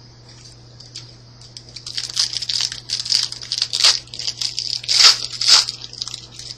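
Yu-Gi-Oh booster pack's foil wrapper being torn open and crinkled, an irregular crackling that starts about a second and a half in, is loudest near the end, and stops just before the close.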